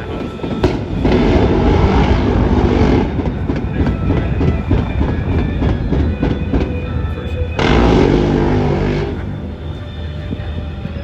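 Rapid-fire gun firing, with two long sustained bursts, one about a second in and one near the eight-second mark, and rapid shots and reports continuing between them.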